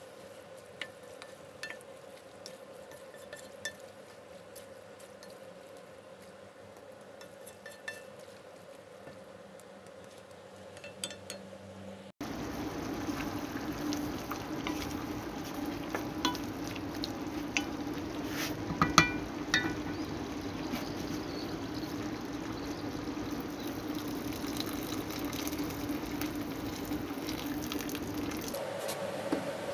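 A wooden spoon stirs chicken hearts and gizzards in a pot, with small scattered knocks against the pot. About twelve seconds in, the sound jumps louder to a steady noise of the meat cooking in its juices, with the stirring and knocks going on.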